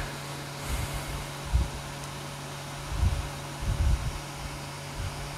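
Dry-erase marker writing on a whiteboard, the pen and board giving a few soft low thuds, over a steady low hum.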